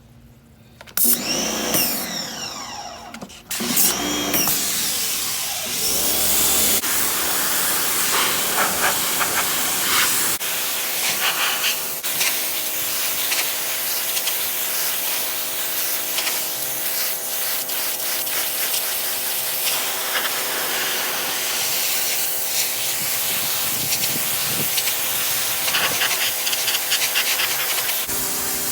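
Sun Joe 13-amp electric pressure washer running: its motor hums while the high-pressure water jet hisses loudly against a surface, starting about a second in.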